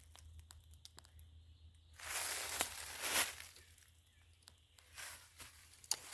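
Footsteps crunching and rustling through dry leaf litter and brush, a few uneven steps with a sharp snap near the end.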